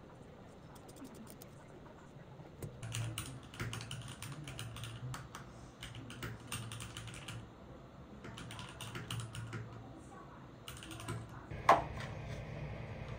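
Typing on a mechanical keyboard: bursts of quick key clicks that start a few seconds in and stop about ten seconds in. Near the end comes one sharp click, the plastic lid of a cotton-swab container snapping.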